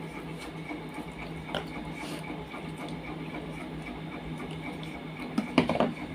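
Eating sounds from a person eating rice and curry by hand: chewing and fingers working the food, with a click about a second and a half in and a short, louder cluster of clicks and knocks near the end. A steady mechanical hum runs underneath.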